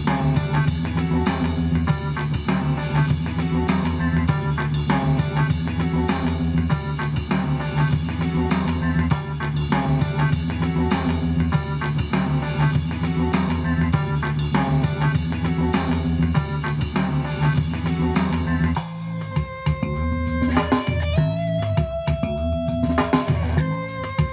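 Guitar-led music with bass and drums played through an XDOBO Vibe Bluetooth speaker. About 19 seconds in, the drums and bass drop out, leaving a few held notes, and the bass comes back near the end.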